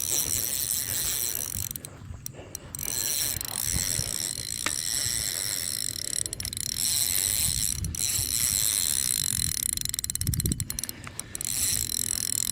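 Ultralight fishing reel ticking steadily, its drag clicking as a big carp on light line pulls line out against it.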